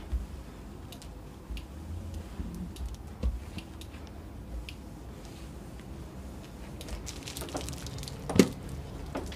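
Steam iron with a hose being pressed and pushed over cloth: soft scrapes and scattered light knocks as it is moved and set down. A sharper knock comes near the end.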